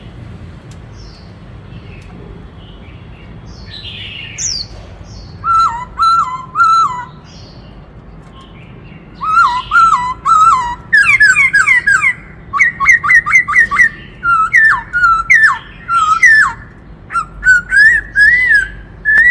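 Black-throated laughingthrush singing: faint calls at first, then from about five seconds in loud, clear whistled phrases of quickly repeated notes, running into fast series of rising notes through the second half.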